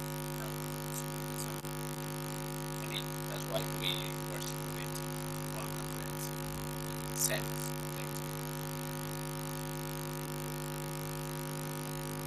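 Steady electrical hum made of several even tones, strongest low down, with a few faint short clicks about three and a half seconds in and again around seven seconds.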